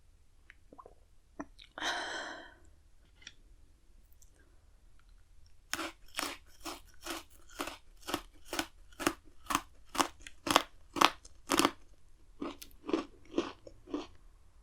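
Crunchy Pocky chocolate biscuit stick being bitten and chewed close to the microphone: one louder crack about two seconds in, then a regular run of sharp crunches, about two a second, from about six seconds until near the end.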